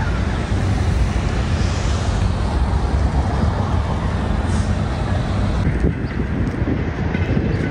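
Steady outdoor background noise with a strong low rumble and hiss, with no distinct events.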